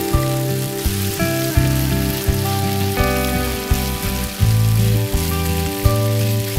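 Background music with a shifting bass line, over a steady sizzle of shredded potato, purple onion and carrot frying in oil in a wok.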